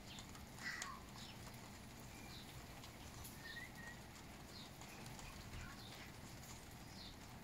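Tui calling faintly: a louder cluster of short notes just under a second in, then scattered brief chirps and clicks, with a couple of short sliding whistles around the middle.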